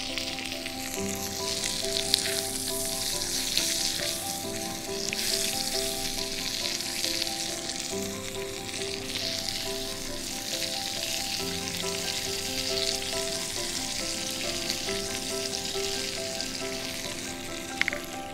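Steak sizzling in a hot cast-iron skillet: a steady crackling hiss with a few sharp pops.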